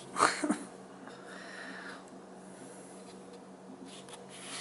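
Handling noise: the circular saw's plastic housing rubbing and shifting in the hand close to the microphone, with a short louder scrape about a quarter second in.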